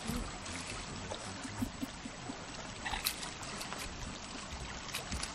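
Shallow creek running over gravel, a steady rush of water, with a couple of brief sharp sounds about three and five seconds in.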